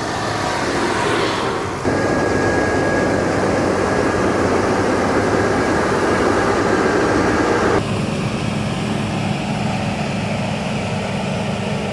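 John Deere combine harvester running as it harvests wheat: a steady engine and machinery drone with a faint high whine. It turns louder and noisier about two seconds in, then drops back abruptly about eight seconds in.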